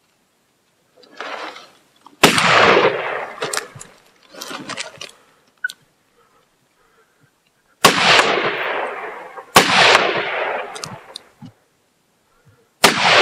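Rifle shots at coyotes: four loud shots a few seconds apart, each ringing out in a long echo, with fainter reports between them.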